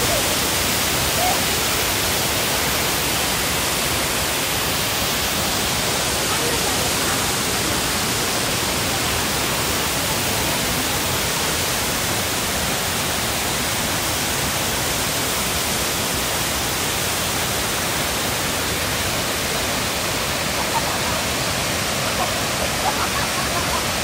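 Steady rush of a waterfall, water pouring down rock cascades into a pool.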